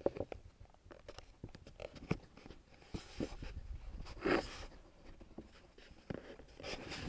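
Rustling and scattered light clicks and knocks of things being handled, with a longer, louder rustle about four seconds in.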